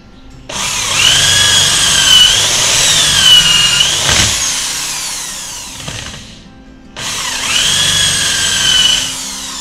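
Electric hand drill boring into the wooden mallet head in two runs, starting about half a second in and again about seven seconds in. Its whine wavers in pitch while running and winds down in a falling tone each time it is switched off.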